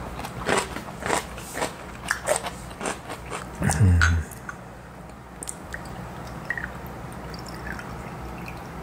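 Close-miked chewing and crunching of a mouthful of raw gizzard shad sashimi, in quick crisp bites for about three seconds. A brief low hum of a voice comes about four seconds in, then a few faint glassy clinks as soju is poured into shot glasses.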